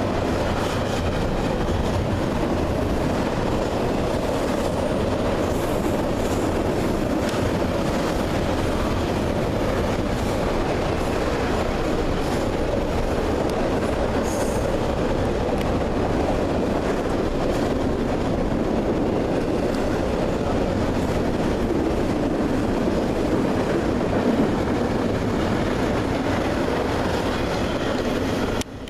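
Freight train cars rolling past steadily, their wheels clattering over the rails, with a brief high wheel squeal about halfway through.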